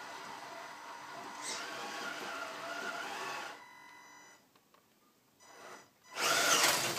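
Tamiya Bruiser RC truck's electric motor and gear train whining as it crawls. The whine stops about halfway through, then comes back much louder, rising and falling in pitch, near the end.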